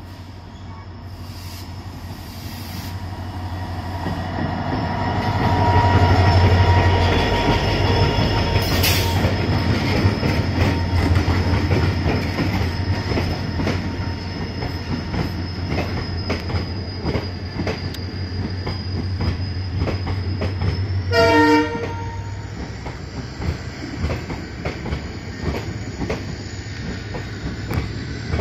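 Locomotive-hauled Indian Railways express train passing at speed: the locomotive comes up loudest about six seconds in, then the coaches roll by with a steady rumble and clatter of wheels over rail joints. A short horn blast sounds about two-thirds of the way through.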